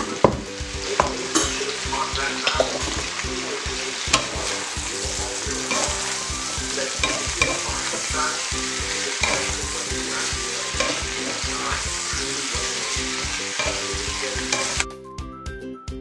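Chicken, eggplant and broccoli sizzling in a hot nonstick wok while being stirred and tossed with a spatula, with scattered taps and scrapes of the spatula against the pan. The sizzle cuts off suddenly near the end and music takes over.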